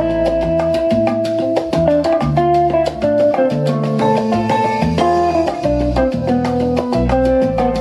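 Salsa-style Latin music with quick, even percussion strokes over a moving bass line and held melodic notes.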